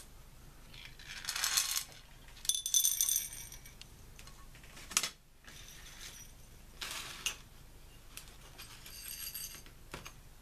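Small silver relay contacts tipped into a glass Petri dish, clinking and clattering, with the glass ringing. There are several separate bursts of clinking and a sharp knock of glass near the middle.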